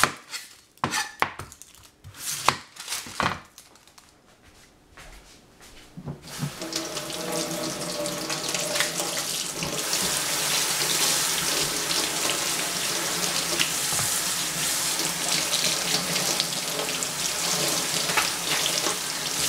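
A few sharp knife strokes on a cutting board, then about six seconds in a kitchen tap is turned on and water runs steadily into the sink.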